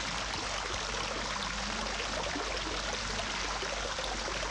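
Kitchen tap running steadily into a sink, the water splashing over a dish held under the stream.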